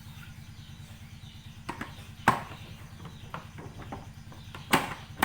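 Hard plastic parts of a Hurom slow juicer clicking and knocking together as they are fitted, about five sharp knocks spread over a few seconds, one of them much louder, over a steady low hum.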